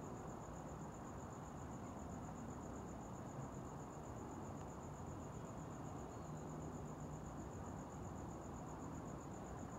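Crickets chirping in one continuous, evenly pulsing high trill, over a faint low background hiss.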